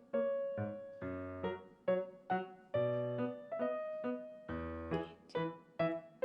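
Background music: a bright keyboard melody of short, evenly paced notes, each dying away.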